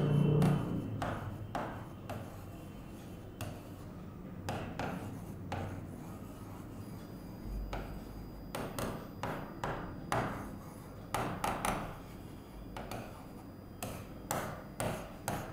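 Marker pen writing on a whiteboard: a string of short, irregular scratching strokes and taps as words are written out.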